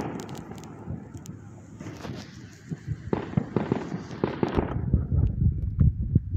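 Fireworks going off: a rapid run of sharp pops and crackles through the middle, giving way to a low rumble near the end.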